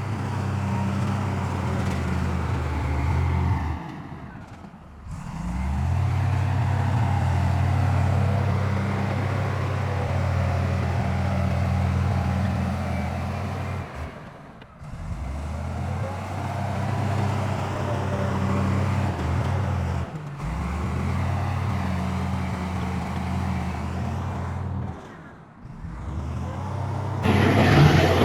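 Heavy diesel engine of earthmoving machinery (bulldozer or dump truck) running steadily with a deep, even engine note. It drops away briefly about four times, and the sound turns louder and noisier near the end.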